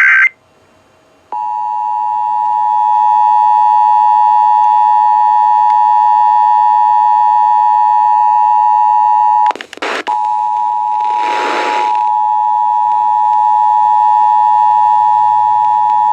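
Emergency Alert System two-tone attention signal (853 and 960 Hz together), a loud steady tone that starts about a second in after the tail of a data burst. It is broken by a short crackle near the ten-second mark, then resumes with a brief hiss over it.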